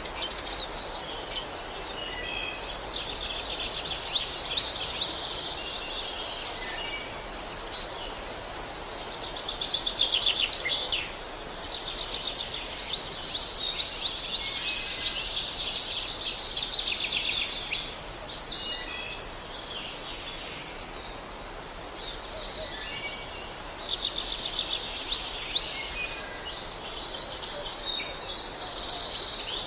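A chorus of many small birds chirping and singing at once, rapid high chirps overlapping steadily throughout.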